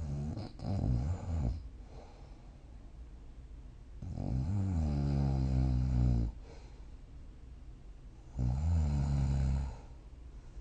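A sleeping person snoring, three snores in all: a choppy one made of several short pulses at the start, a long pitched snore about four seconds in, and a shorter one near the end.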